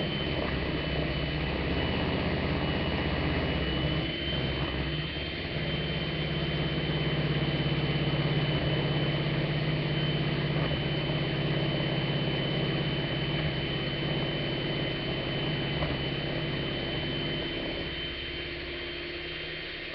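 Handheld electric mixer running steadily, its two beaters working through chunks of solid cocoa butter and shea butter in a plastic bowl: a steady motor hum with a thin high whine, easing off slightly near the end.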